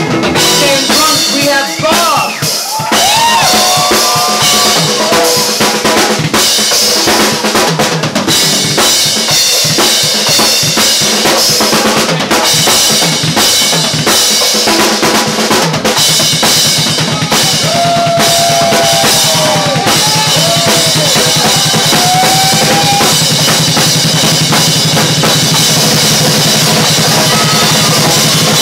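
Live band playing loudly: a drum kit with bass drum, snare and cymbals, an electric bass, and a higher melodic line that slides in pitch. About halfway through, the bass settles into a fast, repeated low note.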